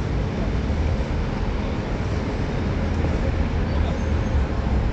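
City street traffic: a steady low rumble of buses and cars passing on the road beside a busy pavement.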